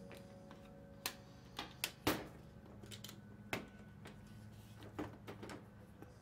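Scattered light clicks and knocks of a small metal pick and plastic parts on a Ricoh copier's drum (imaging) unit as it is probed and handled, about eight in all, the loudest about two seconds in.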